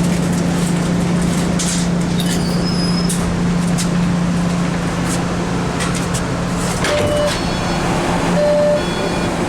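Interior running noise of a CRRC Orange Line subway car pulling into a station: a steady low hum over rumbling wheel and track noise, with a few clicks. Two short electronic beeps come near the end.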